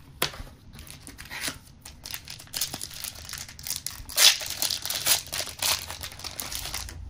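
Clear plastic card sleeve crinkling and rustling as a trading card is slid into it, a run of short scratchy rustles with the loudest about four seconds in.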